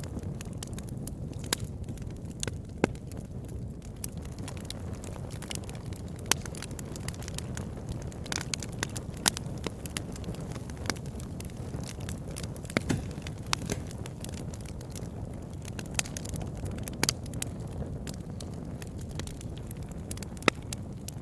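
Campfire burning with a steady low rush and irregular crackles and sharp pops of burning wood, a few louder snaps standing out.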